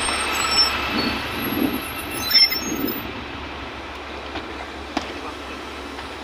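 LiAZ 6213.65 articulated city bus standing at a stop with its engine running, with a steady high whine over the engine hum, heard up close at the open door. About two and a half seconds in, a brief falling sweep; the whine then stops and quieter cabin noise with a few clicks follows.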